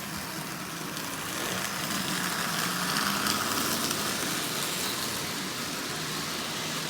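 Toy train locomotive's electric double-reduction motor running steadily with a low hum as it pulls a heavy train of cars, its wheels rolling on the track; it grows a little louder for a couple of seconds in the middle.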